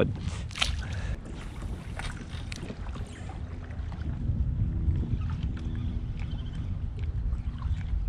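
Steady low wind rumble on the microphone and water lapping around a kayak, with scattered light clicks and one sharper tap about half a second in.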